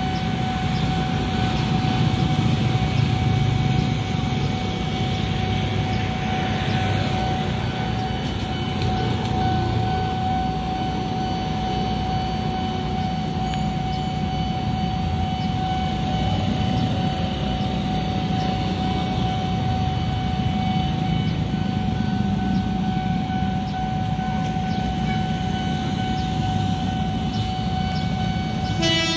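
Motorbike and small-vehicle engines running at a railway level crossing, under a steady high tone from the crossing's warning alarm that does not let up. A horn starts right at the very end.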